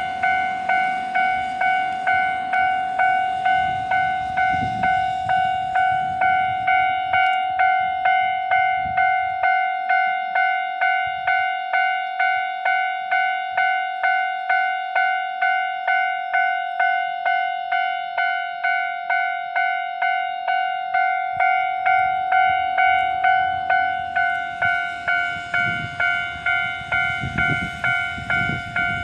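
Japanese railway level-crossing alarm ringing: an electronic bell tone repeating evenly at about two dings a second.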